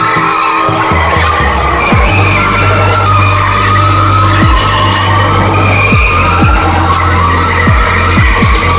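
Tyres squealing as a car spins donuts, mixed with music that has a deep bass line and several booming, falling bass drops.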